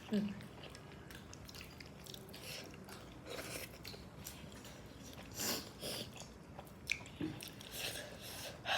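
A person chewing and biting into chicken momos (steamed dumplings), close to the microphone: short, irregular eating sounds.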